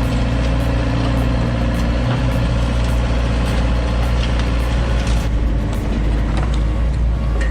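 A heavy engine running steadily at an even speed.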